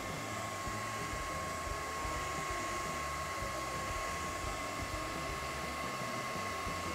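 Britânia hair dryer running steadily, blowing onto freshly painted silk to dry the paint: an even rush of air with a steady whine over it.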